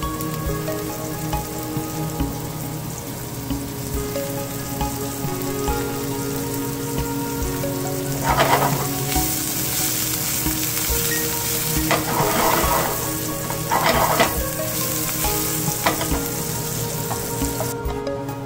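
Diced onion and mushrooms sizzling in a hot non-stick frying pan, a steady frying hiss, with three louder bursts of stirring in the second half.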